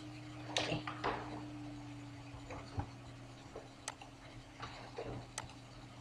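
Scattered, irregular clicks of a computer mouse and keyboard, about eight in all, over a low steady electrical hum.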